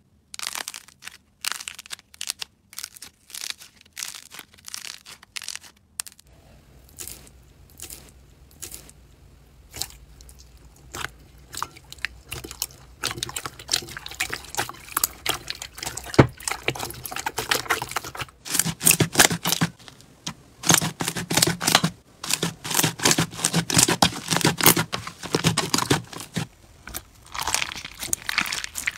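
Slime being squeezed and kneaded by hand: sticky crackles, pops and squelches. Sparse clicks at first, then about a dozen seconds in a dense run of crackling that grows louder.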